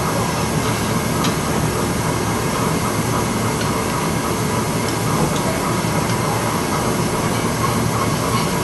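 Steady rushing background noise of a working restaurant kitchen, with a few faint light clicks of a spoon against a stainless-steel ring mould.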